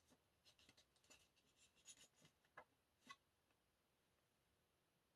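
Faint rustling and light clicks of album packaging and paper inserts being handled for about three seconds, then near silence.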